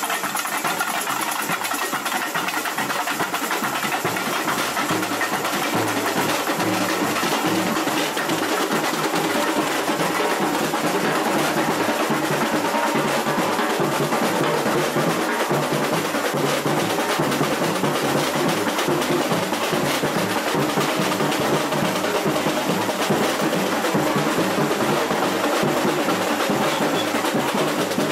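Samba bateria playing live: big surdo bass drums beating a steady low pulse under rattling snare drums and the sharp clicks of tamborins struck with sticks.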